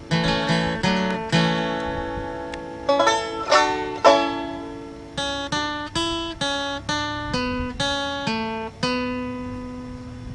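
Background music: a plucked acoustic string instrument picking out a slow melody, each note struck sharply and ringing away.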